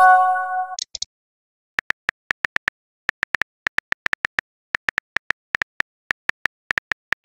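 Simulated phone keyboard clicks from a texting-story app as a message is typed out, in quick runs of taps from about two seconds in. At the start a short chime of several notes sounds as a message is sent, followed by a brief high pop.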